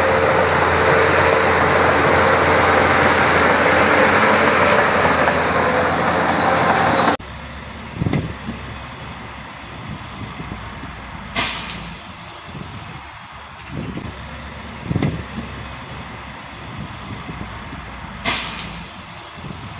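Heavy diesel dump truck engine running hard for about seven seconds, then cutting abruptly to a quieter engine background. Two short, sharp air-brake hisses come later, along with a few dull low thumps.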